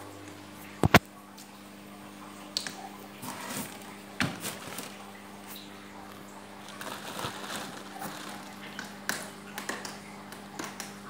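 Plastic fish-transport bag of water being handled in and over a styrofoam box: irregular crinkling, rustling and small knocks, with a sharp double knock about a second in. A steady low hum runs underneath.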